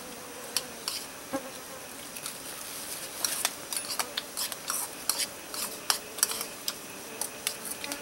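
Spoons clinking and scraping against bowls and metal cooking pots as several people eat, in quick irregular clicks, over a faint steady hum.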